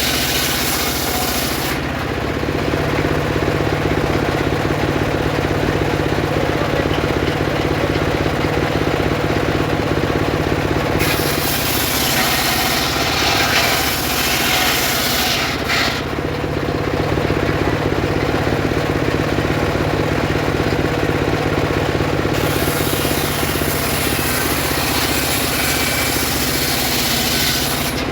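Homemade circular saw ripping sengon wood. Its drive motor hums steadily throughout, and the blade makes a harsh hiss three times as it cuts through the log: at the start, again about halfway, and through the last few seconds.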